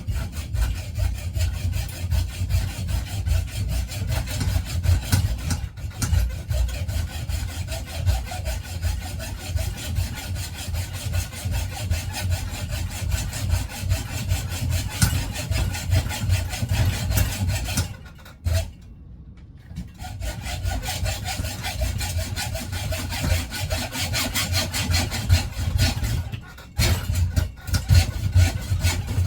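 Hand saw cutting through a metal bicycle fork steer tube, lubricated with WD-40, in steady rapid back-and-forth strokes. The sawing stops for about two seconds a little past the middle, then resumes.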